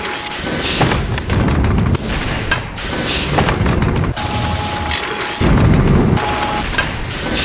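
Sound-designed sequence of heavy booms and sharp impacts, cut in and out abruptly about once a second, with a few short steady electronic beeps over them.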